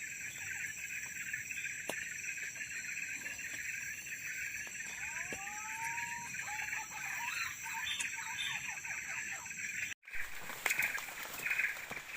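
Forest ambience: a steady high insect drone, with a bird giving a few whistled notes that rise and then level off about halfway through. The sound breaks off briefly about ten seconds in, and after that the insect drone pulses.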